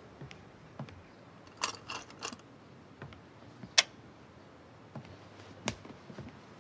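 A handful of light, sharp knocks and taps, scattered and irregular, as books are handled and set down on a stack.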